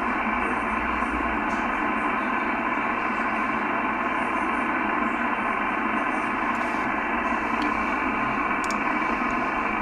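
Steady radio static from a Yaesu FT-1000MP transceiver on receive at 27.490 MHz in the 11-metre band: an even hiss, cut off thinly like a telephone line, by the receiver's voice filter.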